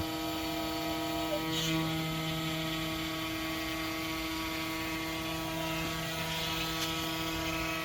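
Homemade CNC router running, a steady hum of several even tones from its motors.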